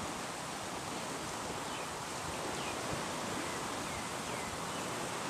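Steady background hiss with a few faint, short, high chirps scattered through it.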